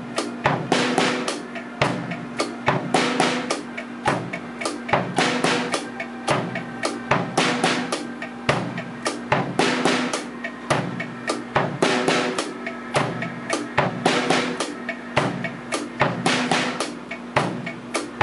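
Acoustic drum kit played in a steady groove, with kick drum, snare and cymbals struck in a dense, regular pattern.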